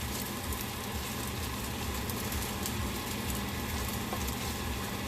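Fried rice sizzling in a hot pan: a steady frying hiss with fine crackles and a low rumble underneath.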